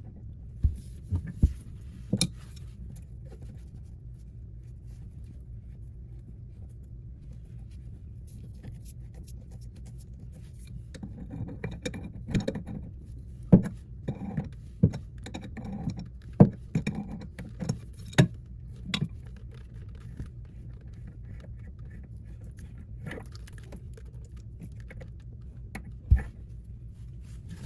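An adjustable wrench loosening the toilet's water supply line nut, in scattered sharp metallic clinks, taps and scrapes, a few near the start, a dense run in the middle and a few near the end, over a low steady hum.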